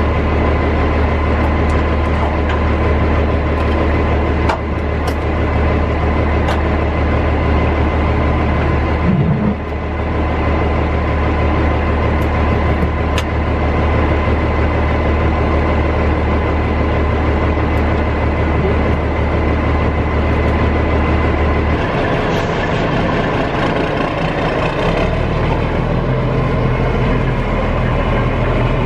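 Diesel semi truck idling steadily, a loud low drone with a faint steady whine over it; the drone shifts in character about three quarters of the way through. A few light clicks sound over it.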